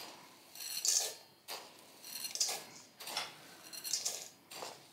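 A metal spoon scooping raw Carnaroli rice from a ceramic bowl and tipping it into a stainless steel mixing bowl, about six times. Each spoonful is a short scrape and patter of grains with a light metallic ring.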